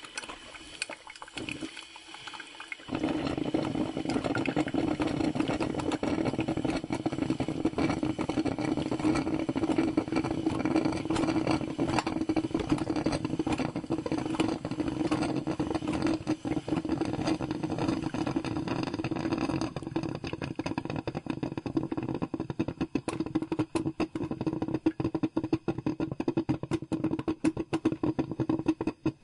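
Coffee brewer brewing: after a few seconds of faint crackling it breaks into a loud, steady bubbling rumble full of crackles about three seconds in, turning more broken and spluttery in the last third.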